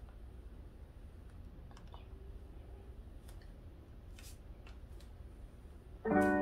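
Faint scattered clicks and light rustling as a child's hair is combed and handled, over a low steady hum. Near the end, keyboard music with sustained chords starts suddenly and is louder.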